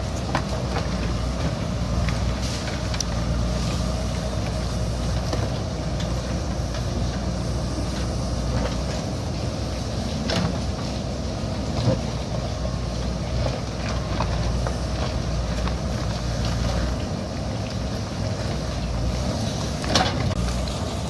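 JCB backhoe loader's diesel engine running steadily at working revs, with a few sharp knocks, the loudest about twelve seconds in and near the end.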